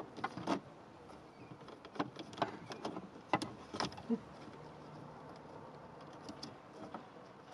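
Plastic clicks and knocks from a blanking plate and a USB charging port being pulled out of and pressed into a car's centre-console switch panel, with a cable being handled. The sharp clicks come in a cluster over the first few seconds, then the handling goes quieter.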